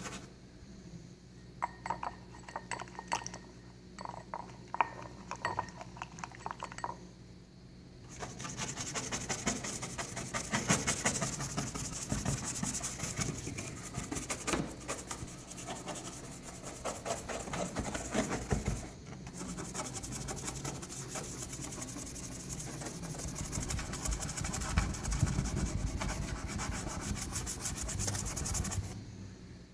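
Baking soda and water paste being rubbed on car paint to take off a scuff: a steady, fast scrubbing that starts about eight seconds in and breaks off briefly near the middle. Before it there are scattered small handling taps.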